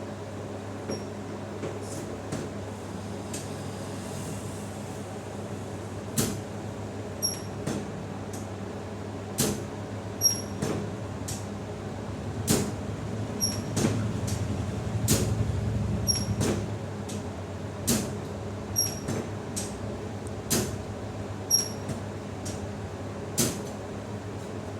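A series of about a dozen sharp, short clicks, one every second or two, made during chiropractic work on a patient, over a steady low hum.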